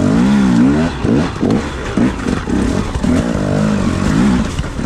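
Enduro dirt bike engine revving up and down in quick, repeated throttle blips while the bike is ridden slowly over rocks.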